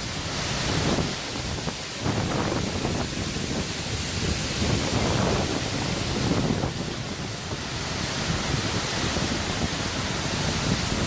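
Waterfall water rushing steadily, with some low wind rumble on the microphone.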